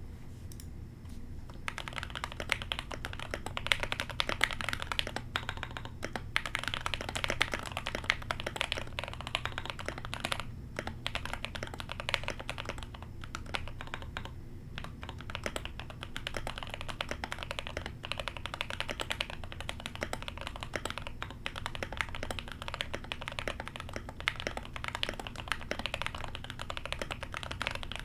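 Continuous fast typing on a tape-modded mechanical keyboard, rapid key clicks and bottom-outs starting about two seconds in, with a couple of short pauses.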